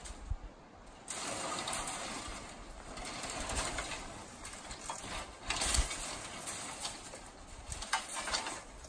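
Dry brush and dead branches rustling and scraping as they are dragged off a truck's flatbed and tossed aside, starting about a second in.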